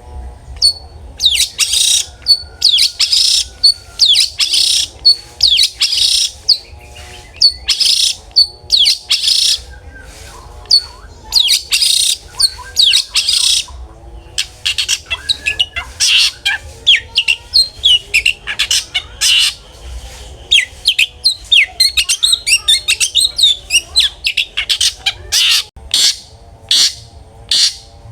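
Long-tailed shrike (cendet) singing in full voice: a rapid string of loud, harsh, scratchy chattering phrases, each about a second long, coming one after another with short gaps, the call style shrike keepers use as lure audio.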